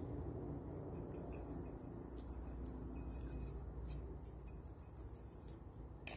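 Spice shakers shaken over a glass mixing bowl: faint, quick ticking of seasoning grains falling, over a low room hum, with one sharper click near the end.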